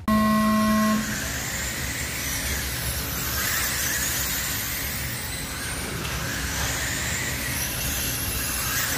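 Radio-controlled midget race cars running laps on a clay oval: a steady whir of small motors and tyres, with high whines rising and falling as the cars pass. A loud electronic beep sounds for about a second at the start.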